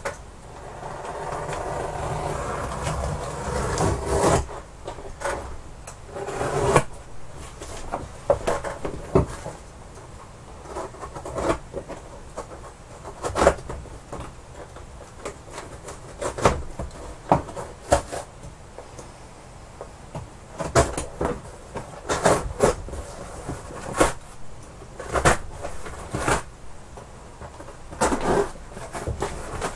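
A knife cutting the packing tape on a cardboard box, and the cardboard being scraped and pulled open. There is a steady rasp for the first four seconds or so, then a string of short scrapes and knocks.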